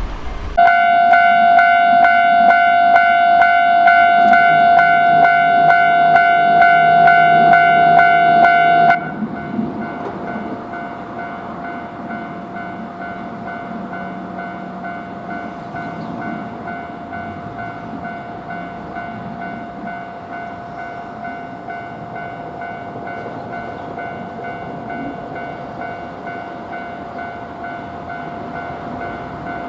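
Japanese railroad level-crossing alarm bell ringing its evenly repeated 'kan-kan' strikes, a steady ringing tone with overtones. About nine seconds in it drops sharply to a much quieter level and keeps ringing.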